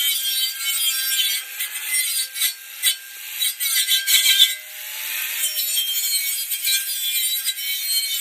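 Angle grinder working bare car-body metal to clean it up ahead of welding: a harsh, hissing grind over a motor whine that shifts in pitch as the disc bites, easing off and coming back several times.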